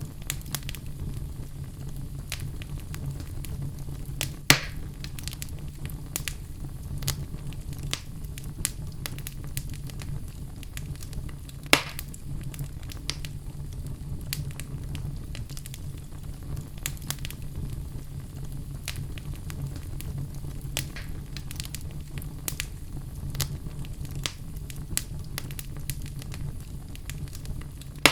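Logs burning in a fireplace, crackling with frequent small pops over a steady low rumble of the flames. Two louder pops stand out, one about four seconds in and one near the middle.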